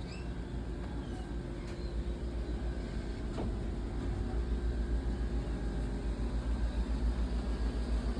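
Low, pulsing rumble of a car driving, heard from inside the cabin, growing somewhat louder toward the end.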